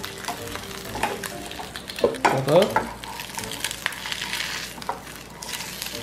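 Eggs sizzling in a nonstick frying pan while a plastic spatula scrapes under them and flips them over easy, with a louder scrape a little after two seconds in.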